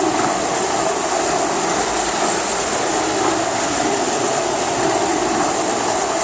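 Marx Commodore Vanderbilt electric toy locomotive running steadily around its track: a continuous motor whir with a fine rattle of wheels on the rails.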